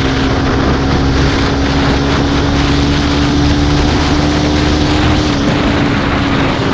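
Motorcycle engine running at a steady high speed, holding one even drone, with a heavy rush of wind over the microphone.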